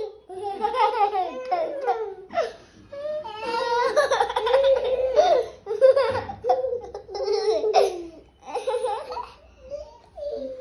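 Young children laughing hard in repeated bursts of giggles and belly laughs during rough-and-tumble play.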